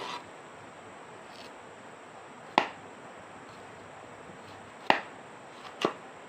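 Sharp knife knocks, four short strikes a second or two apart, as produce is peeled with a knife.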